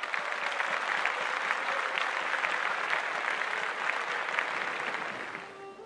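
Audience applauding, dense, even clapping that fades out near the end.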